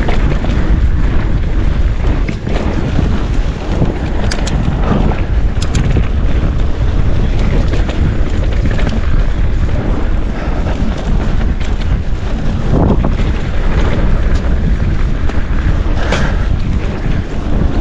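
Wind rushing over the camera microphone on a mountain bike riding down a dirt trail, with the rumble of the ride and a few sharp clacks from the bike over bumps, about four and a half, five and a half and sixteen seconds in.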